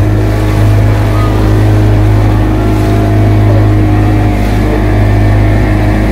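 A boat's 40 hp outboard motor running steadily while underway, a constant low drone.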